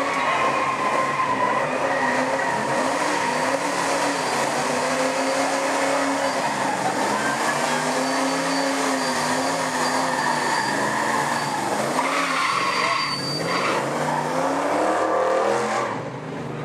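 Car engine revving hard through a burnout, its pitch rising and falling again and again as the spinning rear tyres squeal and smoke on the asphalt; it eases off near the end.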